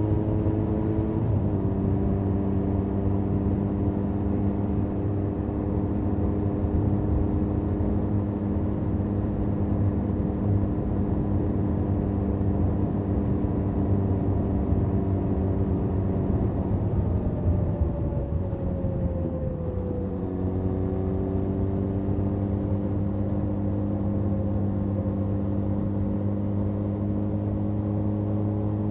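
Benelli 502C's 500 cc parallel-twin engine through its stock exhaust, heard onboard while riding at a steady road speed. There is a gear change about a second in. Near the middle the revs fall away for a few seconds, then step up and climb slowly again, with wind and road noise underneath.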